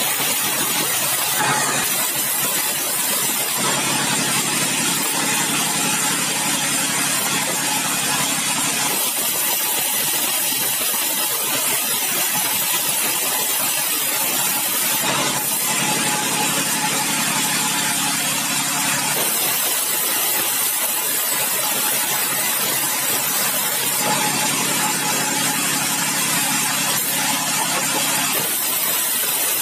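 Large sawmill band saw running and ripping bengkirai hardwood into boards: a loud, steady machine din. A deeper hum comes in for several seconds at a time, three times.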